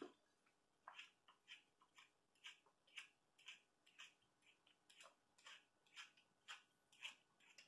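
Faint, quick snips of grooming scissors trimming the hair on a small dog's face, about two a second.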